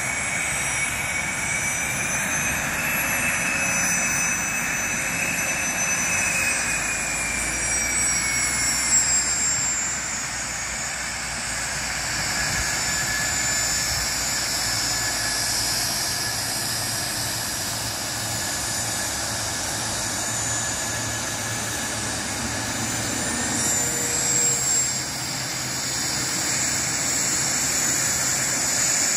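Cessna 510 Citation Mustang's twin Pratt & Whitney Canada PW615F turbofans running at taxi power as the light jet taxis past: a steady jet whine with high tones that drift slowly in pitch.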